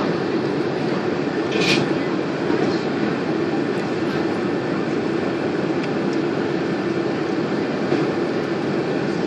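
Steady rumble inside the cabin of a Boeing 767 airliner, with a brief hiss about two seconds in.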